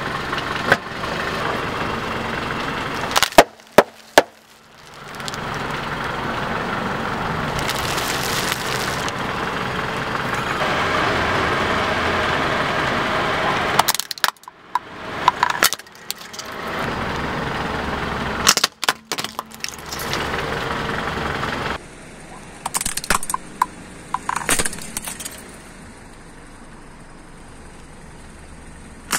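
Car tyre rolling over and crushing brittle plastic, a plastic cup of felt-tip pens among it, with several bursts of sharp cracking and snapping. Between the bursts the car's engine runs steadily.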